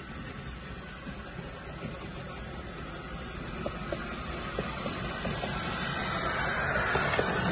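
Miniature steam locomotive approaching, its steam hiss growing steadily louder. Light clicks of wheels on the track join in about halfway through.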